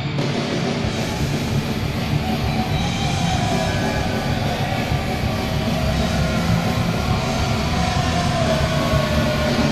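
Anaheim Ducks goal horn blowing over the loud heavy-rock goal song played through the arena PA; the horn joins sharply right at the start and the music runs on continuously.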